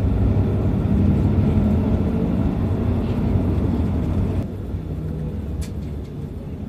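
Nagoya Guideway Bus running, a steady low engine rumble with a hum, heard from inside the bus. The sound drops abruptly to a quieter level about four and a half seconds in.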